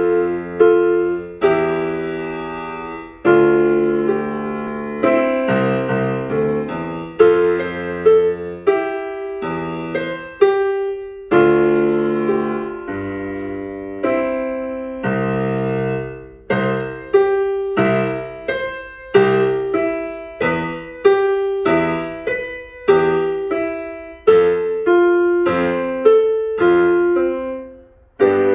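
Digital piano playing a slow piece of struck chords, each one left to ring and fade before the next. The chords come about every one and a half seconds at first and closer together in the second half.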